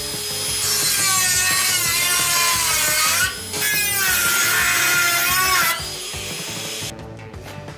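A power tool cutting into a microwave oven in two long passes with a short break between them, its pitch wavering as it cuts; it stops about six seconds in, leaving background music.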